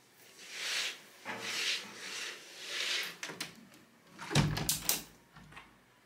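Household cleaning and tidying sounds: three swishing strokes in the first three seconds, then a clatter of clicks and a heavy knock of a cabinet closing.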